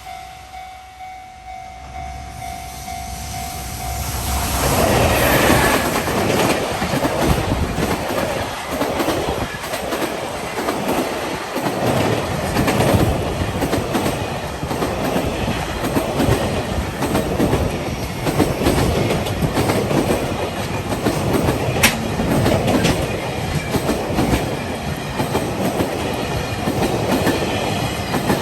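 Freight train approaching and passing at speed; about four seconds in it arrives and stays loud, with the rail joints clicking rhythmically under the wagons.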